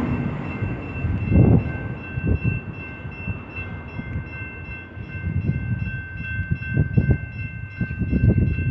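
Railroad grade-crossing bell ringing steadily while the flashers blink and the gate arms rise after a train has passed. Gusts of wind buffet the microphone, and the last of the train's rumble fades away at the start.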